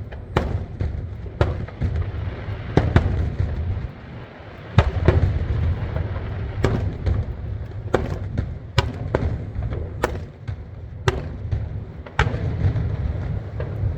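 Aerial fireworks bursting overhead: about fifteen sharp bangs at irregular intervals over a continuous low rumble.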